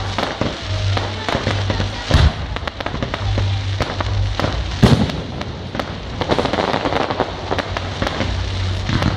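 Fireworks display: a steady crackle of bursting crackling stars, with sharp bangs of shells exploding about two seconds in and, loudest, about five seconds in.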